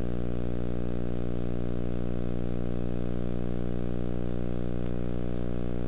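Steady electrical hum with a buzzy stack of overtones, unchanging throughout, over faint hiss.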